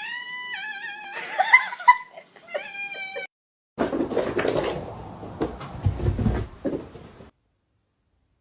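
Domestic cat meowing in long, drawn-out calls that waver and bend in pitch, as if answering a question, for about three seconds. After a short break come a few seconds of unclear noise with some knocks, and then silence.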